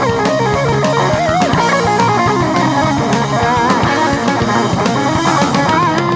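Rock band playing an instrumental break: an electric guitar lead with bent, wavering notes over drums and bass.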